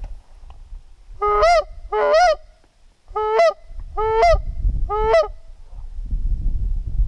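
Goose honking: five loud two-note honks, each a low note breaking up into a higher one, two close together and then three.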